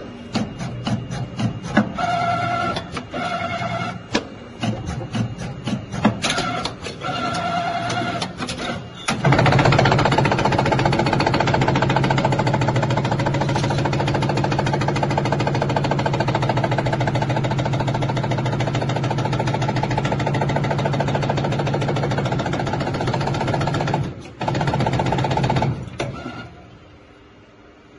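CNC bending machine working stainless steel strip through a bending program: first a quick run of clicking strokes with short whining pulses, then a loud steady motor drone for about fifteen seconds, with a brief break near the end before it stops.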